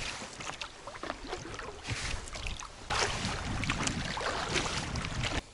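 Water splashing and slapping around a small boat, with scattered knocks and ticks. It gets louder about three seconds in and cuts off abruptly near the end.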